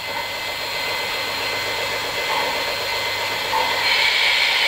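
Steam hiss played by the onboard sound system of a stationary O-scale Norfolk and Western Y6b model locomotive. The steady hiss grows louder about four seconds in, over a faint low hum.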